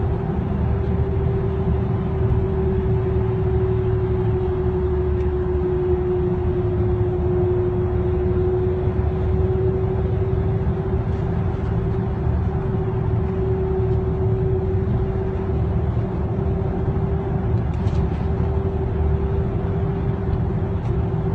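Steady road and engine noise inside a car's cabin while it travels at speed on a dual carriageway, a low rumble with a constant droning hum over it.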